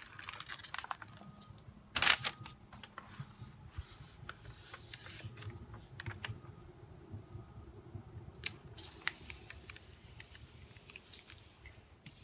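A large diamond painting canvas being handled: scattered crinkles, rustles and small clicks, with one louder knock about two seconds in and a longer crinkling stretch near the middle.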